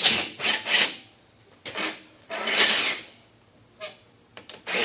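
A socket tool working on a long steel tie bolt that holds a battery module's cells together, as the bolt is loosened for removal. It makes a few short bursts of scraping, rattling noise, the longest about two seconds in.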